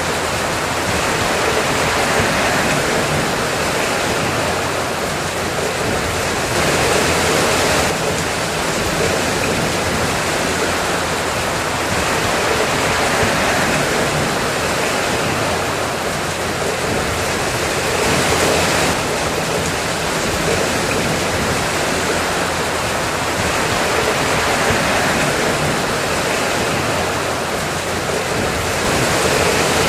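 Steady heavy rain, an even hiss that swells a little every ten seconds or so.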